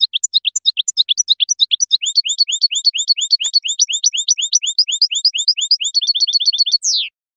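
European goldfinch singing: a fast, continuous run of short high chirping notes that quickens into a rapid trill near the end, closes with one falling note, and cuts off suddenly.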